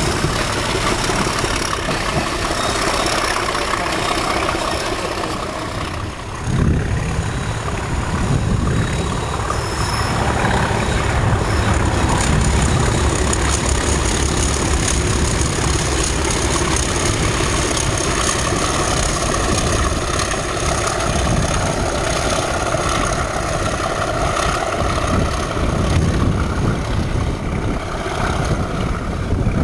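Nuclear flask wagons rolling past on the rails, then, from about six seconds in, two Class 37 diesel locomotives passing under power. Their English Electric V12 engines give a deep, steady rumble with a steady whine over it.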